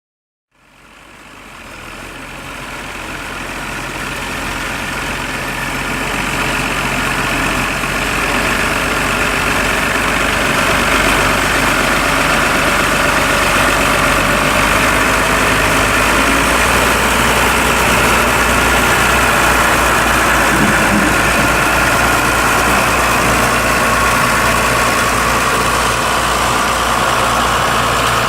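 Diesel tractor engine running steadily with the machinery it drives, fading in over the first few seconds.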